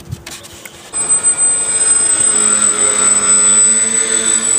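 Electric RC plane's motors and propellers running in flight, starting about a second in with a steady high whine over a lower drone.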